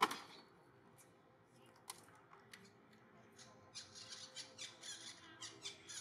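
Young long-tailed macaques squealing, a quick run of high-pitched squeaks that starts about four seconds in as two of them wrestle in the water. A single sharp crack comes at the very start.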